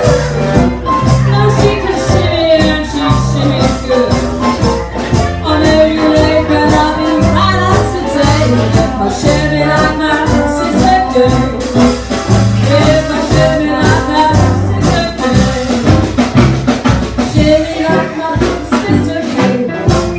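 Live traditional jazz band playing an up-tempo number: trumpet lead over banjo, drum kit and keyboard, with a steady beat and a moving bass line.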